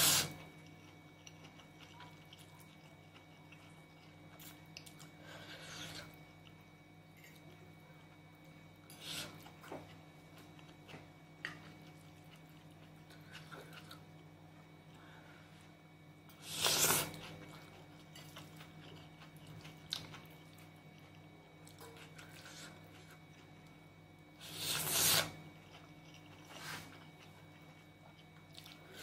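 Curry noodles being slurped and chewed close to the microphone: three loud slurps, one at the very start and two more later, with quieter chewing and small clicks between, over a faint steady hum.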